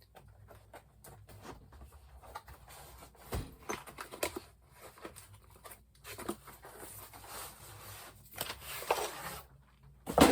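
Ceiling fan blades and their wrapping being handled: scattered clicks, light knocks and rustling, with a longer rustle about a second before the end and a sharp knock at the very end.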